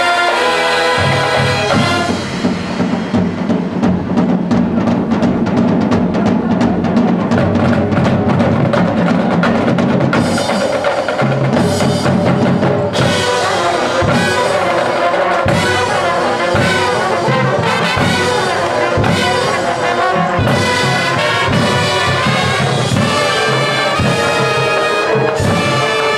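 Marching band playing a field show: brass chords over drums and front-ensemble percussion. A long held chord in the first part gives way, about halfway through, to a rhythmic passage with accented percussion hits.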